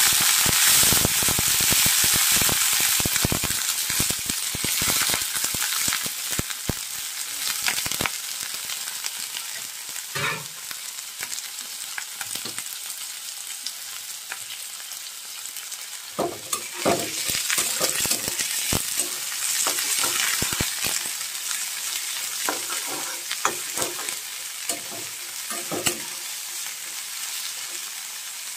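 Mixed vegetables sizzling in hot oil in a metal kadhai. They are stirred with a metal spatula that scrapes and clicks against the pan. The sizzle is loudest for the first few seconds, then settles to a steadier, quieter hiss.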